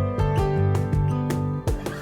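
Background music: a song led by plucked guitar notes at a steady beat.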